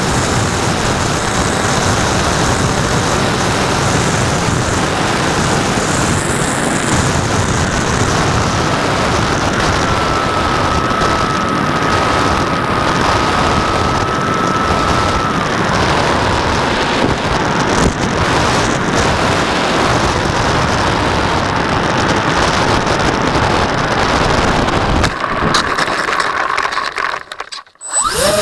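Rushing wind over a model plane's nose-mounted camera with the steady whine of the twin motors and propellers; the whine steps down in pitch about halfway through as the throttle comes back. Near the end the noise falls away briefly as the model touches down.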